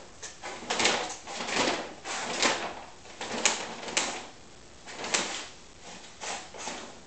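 Brown paper bag rustling and crinkling in a string of irregular bursts, about two a second, as a Bengal cat moves and plays inside it.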